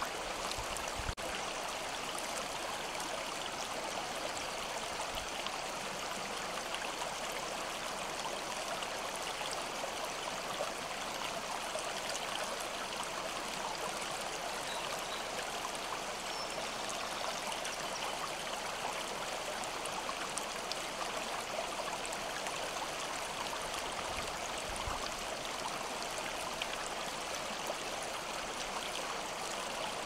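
Shallow mountain stream flowing over stones, a steady, even rush of water with trickling.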